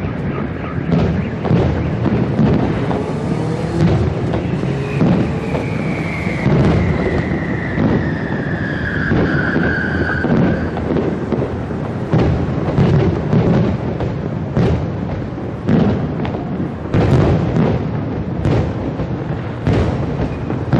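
Fireworks display: a dense, continuous barrage of aerial shell bursts and booms, with sharp bangs every second or so. A whistle falling in pitch runs through the middle for several seconds.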